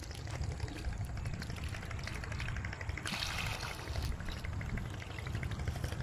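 Water pouring and dripping off a mesh ring-net fish trap as it is lifted out of shallow floodwater, with a louder splash about three seconds in. A steady low rumble runs underneath.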